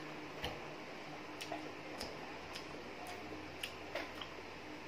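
Faint crunching of chewed chicharong bulaklak, the crispy deep-fried pork mesentery, with short sharp crunches about twice a second.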